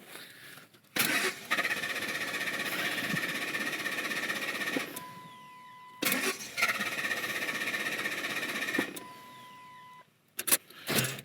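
1998 Ford F-150's starter cranking the engine in two attempts, about four seconds and then about three seconds, without it catching. A steady electronic tone sounds briefly after each attempt. The truck is hard to start, which the owner puts down to old, dark gasoline or the anti-theft system.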